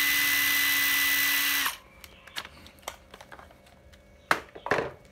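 Makita 12V cordless impact driver motor running free at a steady speed with a high whine, then stopping abruptly a little under two seconds in. A few light clicks and two louder knocks follow as the tool is handled against its plastic carrying case.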